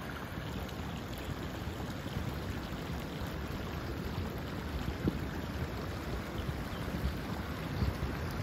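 Muddy flash-flood water of the Paria River running in shallow channels over sand and gravel, a steady rushing hiss. A low, uneven rumble underneath comes from wind buffeting the microphone.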